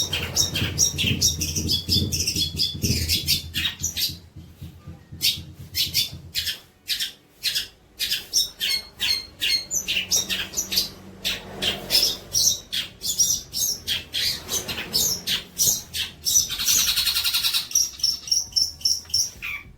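Songbird song from a masteran training recording: a rapid series of sharp, repeated chirping notes, over a low hum for the first few seconds, with a harsh rasping call about seventeen seconds in.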